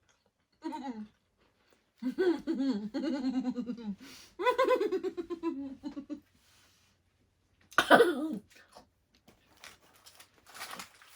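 A person laughing in several drawn-out bursts, with a short loud outburst about eight seconds in, then scattered light clicks and rustling near the end.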